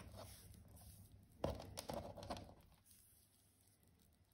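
Faint handling of a digital multimeter on a table: a single light click about a second and a half in, a little rustling, then near silence.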